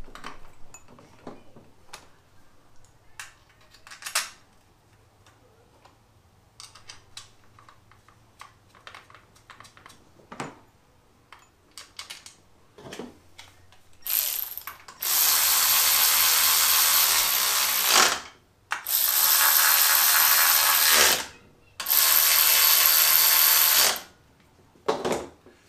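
Light clicks and knocks of metal transmission parts being handled, then a cordless power tool run hard in three bursts of two to three seconds each, driving fasteners during transmission assembly.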